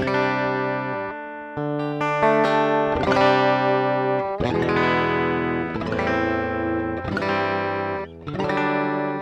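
Electric guitar played through a pedalboard: strummed chords ringing out, a new chord struck every second or so.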